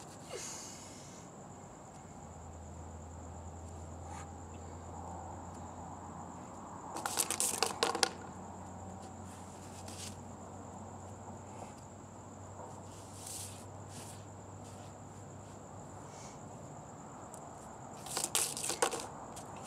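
Hula hoop clattering against a concrete driveway in two short rattling bursts as it is kicked up from the ground, about seven seconds in and again near the end. Under them runs a steady high-pitched whine and a faint low hum.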